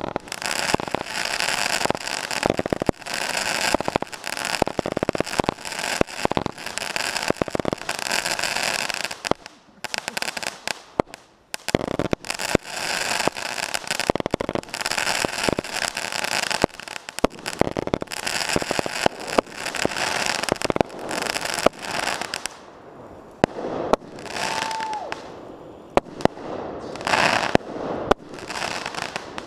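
Aerial fireworks going off in a fast string of shots and bursts over a dense crackle, dipping briefly about ten seconds in and thinning out after about twenty-two seconds.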